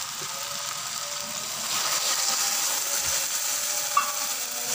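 Water poured into a hot kadhai of frying red lentils and ridge gourd, a steady sizzling hiss that grows louder about two seconds in. A short clink near the end.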